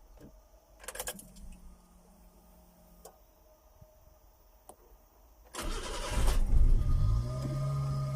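A couple of clicks, then the Subaru kei truck's engine is cranked by the starter motor for about a second and a half, catches and settles into a steady idle.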